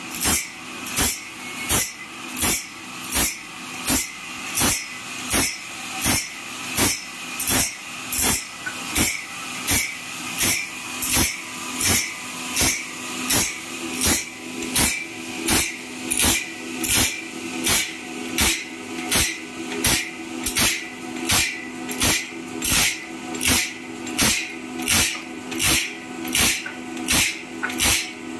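Automatic band saw blade sharpener grinding one tooth at a time: its abrasive wheel rasps against each tooth in a steady rhythm of about one and a half strokes a second as the pawl indexes the blade along. Under the strokes runs the steady hum of its electric motor.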